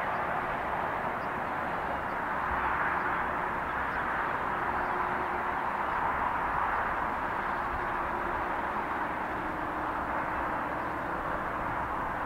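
LNER A4 Pacific 60009 hauling a train in the distance, its exhaust heard as a steady roar with no separate beats standing out, working hard enough to throw up a heavy plume of steam.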